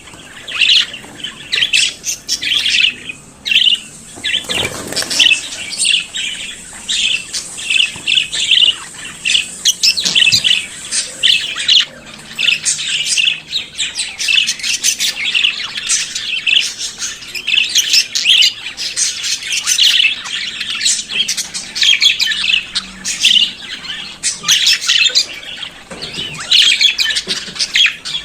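Budgerigars warbling and chattering: a continuous stream of rapid chirps, twitters and short squawks.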